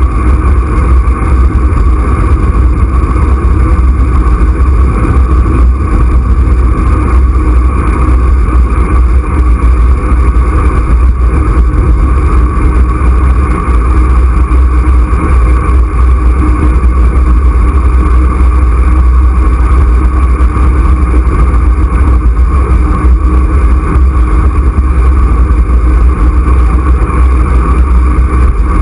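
Loud, steady rumble of wind buffeting the microphone and road noise from a camera riding on a moving vehicle, unchanging throughout.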